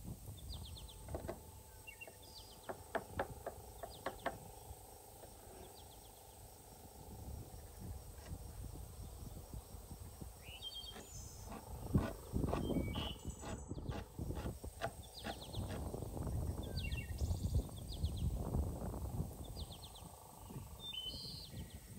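A knife chopping fresh dill on a wooden cutting board in a run of quick, sharp taps, with small birds chirping now and then. A longer stretch of low rustling and handling noise fills the second half.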